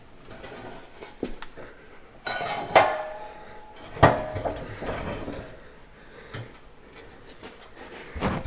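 Metal clanking and knocking as heavy tractor PTO parts and tools are handled during disassembly, with two sharp clanks about three and four seconds in, the first ringing briefly, and another near the end.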